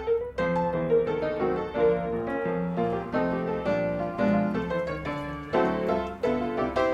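Background piano music: a gentle melody of separate notes over a steady accompaniment.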